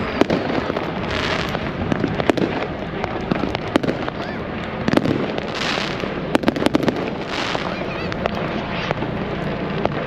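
Fireworks going off: a steady scatter of sharp bangs and crackles, with three hissing bursts among them.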